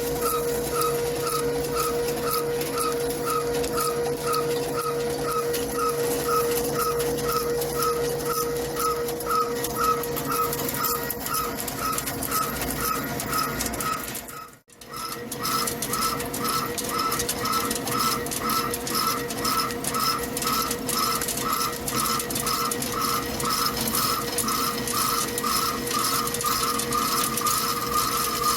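Heavy CNC lathe cutting a steel forging: the tool squeals in a steady rhythm of about two pulses a second over a constant hum, with a brief dropout about halfway.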